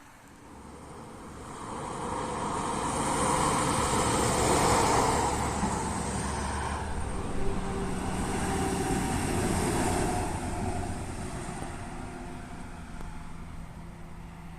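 A road vehicle driving past: engine and tyre noise swell over a few seconds, stay loud through the middle and fade away near the end.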